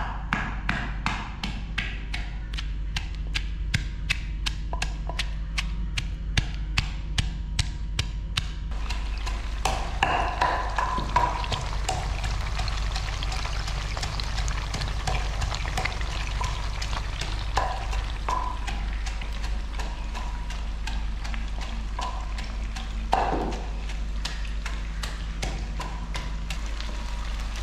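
Wooden pestle pounding in a mortar, crushing garlic, ginger, green chillies and onion into masala, a steady beat of about three strikes a second that stops about eight or nine seconds in. Then fish pieces frying in hot oil in a wok, a steady sizzle.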